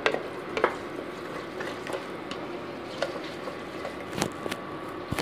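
Wooden spatula stirring paneer bhurji in a pressure cooker pan, with scattered sharp knocks and scrapes of the spatula against the pan over a steady soft hiss of the cooking food.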